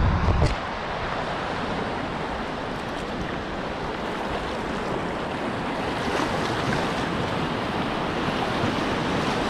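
Whitewater rushing steadily through a river rapid, a continuous dense hiss of moving water. A brief low thumping and rumbling in the first half-second, as something knocks against the camera.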